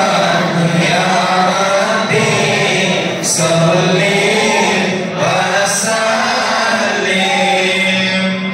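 A group of men chanting a mawlid, devotional verses in praise of the Prophet, in a continuous sung melody.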